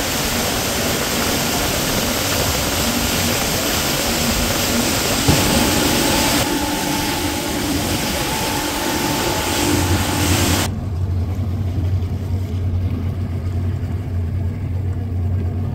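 Boat underway at speed: its engine running under a loud rush of wind and water. About two-thirds of the way through the sound changes abruptly to a steadier, deeper engine drone with the hiss gone.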